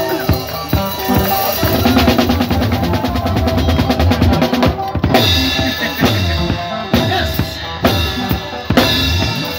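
Live band playing, led by a drum kit: a run of fast, even drum strokes in the first half, a brief break about five seconds in, then kick and snare drive the band again under guitar.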